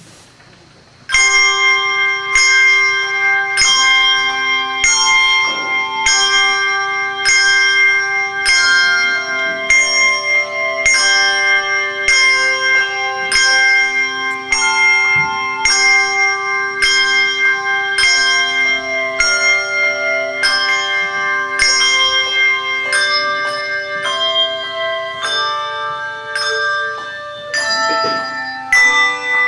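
Handbell choir playing: a steady pulse of struck, ringing handbell chords, a little under two strokes a second, over a long-held lower bell note, starting about a second in.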